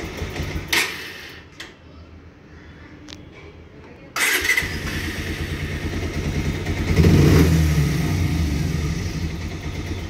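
Bajaj Pulsar 125 DTS-i single-cylinder engine running, then cutting out about a second in, with a couple of faint clicks in the lull. About four seconds in it is started again on the electric starter and catches, swells up around seven seconds and settles back to a steady idle. The owner describes an idle problem with this engine and a tick-tick noise from it.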